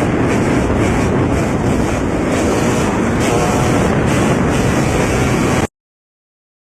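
Loud wind buffeting on the microphone over a steady vehicle rumble, cutting off abruptly about five and a half seconds in.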